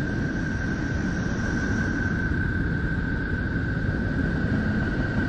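Sonified radio and magnetic-field emissions presented as recorded from Neptune: a steady, dense rushing rumble with a thin whistle held at one pitch throughout.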